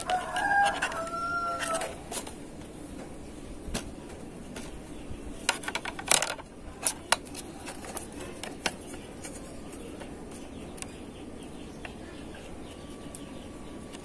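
A rooster crowing once, a two-part call of just under two seconds, with its pitch dropping slightly in the second part. Later come a few light clicks and taps of small metal parts being handled.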